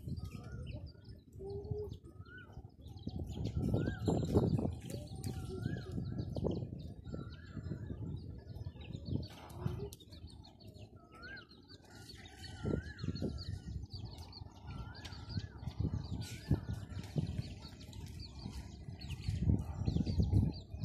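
A bird repeating a short warbling call, often two or three notes close together, again and again, over irregular dull low thumps and rumbling.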